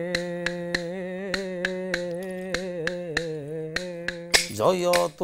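Dasakathia wooden clappers (kathi) clicking in a steady rhythm, about two to three clicks a second, over a long held note. The held note breaks off near the end and a louder sung phrase begins.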